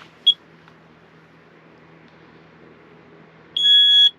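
Carbon monoxide detector being tested: one short chirp at first, then its loud, high-pitched alarm beep sounds near the end.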